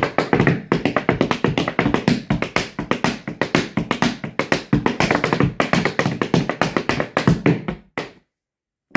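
Music with dense, rapid percussive taps, stopping abruptly about eight seconds in.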